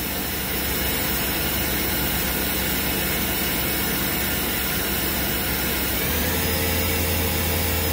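Main spindle of a 2008 Tsugami SS20 Swiss-type CNC lathe running steadily at 4,000 RPM with a hum and hiss. About six seconds in, it steps up toward 5,000 RPM: the low hum gets stronger and slightly higher.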